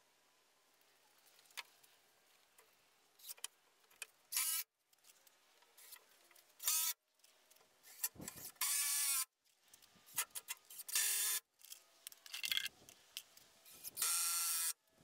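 Cordless drill driving screws into the wooden boards in about five short bursts of motor whine, with small clicks and knocks of handling the boards between them.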